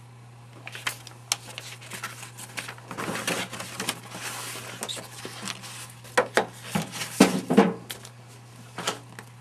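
Sheets of paper rustling and snapping in quick irregular handfuls as they are leafed through and shuffled at an open metal filing-cabinet drawer of folders, loudest about seven seconds in. A steady low hum runs underneath.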